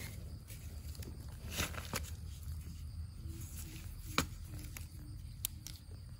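A wooden digging stick prying and scraping in crumbly soil around termite mushrooms, with scattered sharp clicks and knocks of stick and clods, the loudest about four seconds in, over a steady low rumble.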